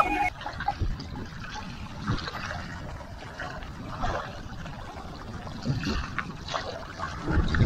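Small waves lapping and trickling in shallow seawater, with irregular low rumbles, the loudest near the end.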